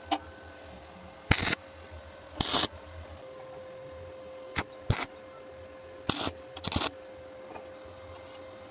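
Short bursts of welding, each a quarter second or less: quick tack welds, about seven of them spaced irregularly, over a faint steady hum.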